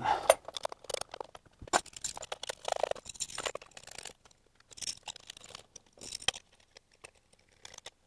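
Steel high-pressure fuel lines and their fittings being handled and fitted back onto the fuel injectors: scattered light metallic clicks, clinks and scrapes, dying away near the end.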